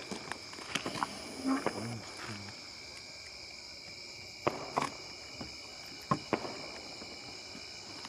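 Night insects chirring steadily in a high, even drone, with scattered short clicks and knocks, like footsteps, on top.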